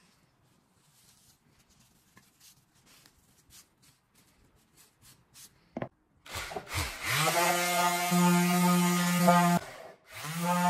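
Faint light clicks and taps from handling wood and tools, then an electric power tool motor starting up about six seconds in. It rises in pitch as it spins up and runs with a steady hum, stops briefly near the end and spins up again.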